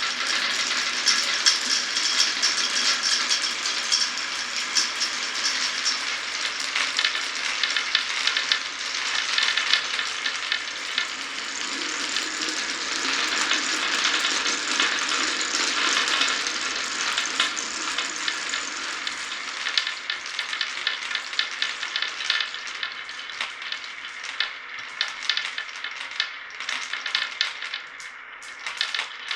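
Many glass marbles rolling and clattering together down a wooden marble run, a dense continuous rattle of tiny clicks. It thins out into more separate clicks near the end.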